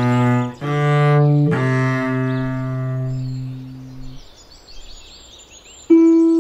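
Low bowed string notes, cello-like, in a short phrase that ends on a long held note fading out about four seconds in. Faint high chirps follow, and near the end a higher plucked note begins.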